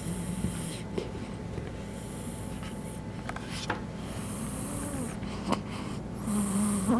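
A baby snoring, four snoring breaths about two seconds apart.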